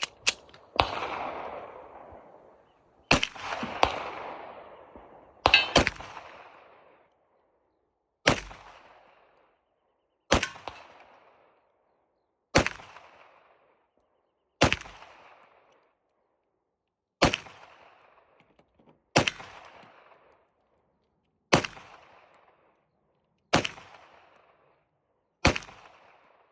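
Glock 17 9mm pistol firing about fourteen single shots, each followed by a short ringing echo. The first few come quickly, then one follows about every two seconds, the slow fire of a beginner practising.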